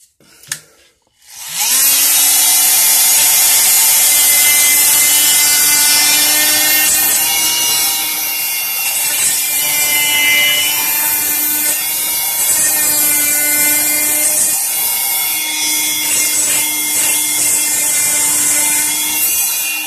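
Handheld electric power tool starting up about a second and a half in and running steadily, a hum under a rough grinding hiss as it rounds off the edges of a birch walking stick's top. Its pitch sags a few times as it bears on the wood.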